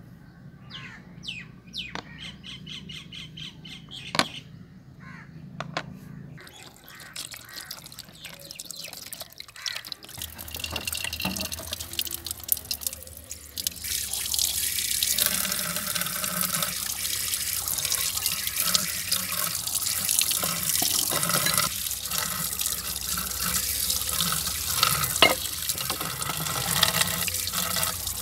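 Tap water pouring and splashing onto a rusty steel pipe wrench and the concrete floor below as the wrench is rinsed off. The water is loud and steady from about halfway on. Before it starts there are a few bird calls.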